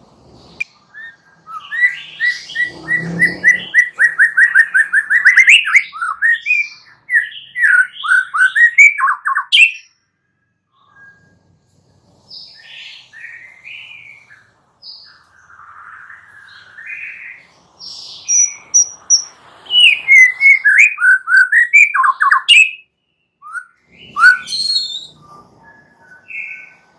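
White-rumped shama singing: two long, loud runs of rapid, repeated whistled notes and trills, with quieter scattered notes in the pause between them and near the end.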